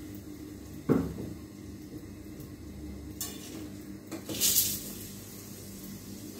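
Paratha being cooked on an oiled tawa: a sharp knock of the presser against the pan about a second in, a click just after three seconds, then a short sizzling hiss about four and a half seconds in as the paratha is turned with a spatula, over a steady low hum.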